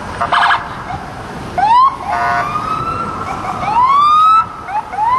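Several police car sirens going at once as cruisers pass, sweeping up in pitch in short whoops and longer rising wails, loudest about 2 s and 4 s in. Two short horn blasts sound, one near the start and one about two seconds in.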